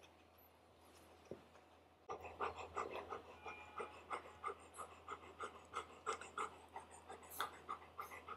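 Adult golden retriever panting in quick, even breaths, about three a second, starting about two seconds in.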